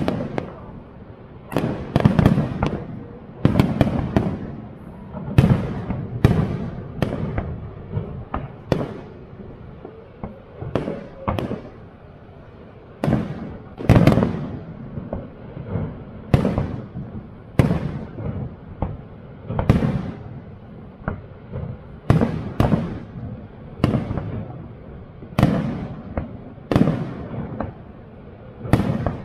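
Aerial fireworks shells bursting in a rapid, irregular series of booms, about one a second, each trailing off in an echo. One of the loudest bursts comes about halfway through.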